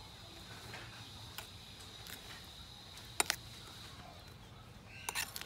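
Metal spoon stirring beaten eggs and chopped herbs in a ceramic bowl, clinking against the bowl: a sharp double click about three seconds in and a quick cluster of clicks near the end. A faint steady high-pitched tone runs underneath.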